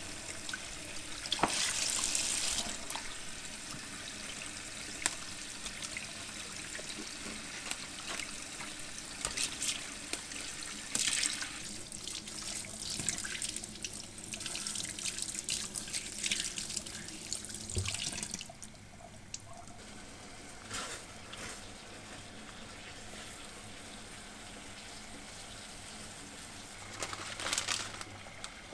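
Tap water running into a sink with splashing, louder in bursts about two seconds in, about eleven seconds in and near the end, and quieter after about eighteen seconds.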